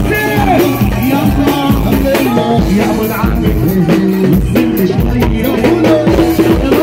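Loud live Arabic dance music: an electronic keyboard playing a quick, ornamented melody over a steady, driving drum beat.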